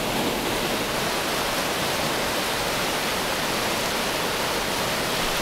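Steady rush of a glacier-fed mountain river running high at bank full: an even hiss of fast water with no breaks.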